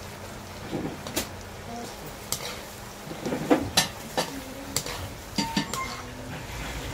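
Chicken intestines deep-frying in a wok of oil with a steady sizzle, while a wire-mesh skimmer stirs them and knocks against the metal wok with several sharp clinks.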